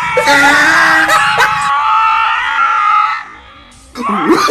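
A long, drawn-out scream over music that cuts off suddenly about three seconds in. After a brief lull, a wailing voice starts near the end.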